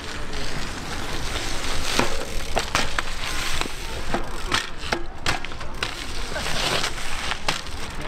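Mountain bike tyres rolling and crunching over the gritty surface of a pump track, with scattered clicks and knocks from the bike as it goes over the humps.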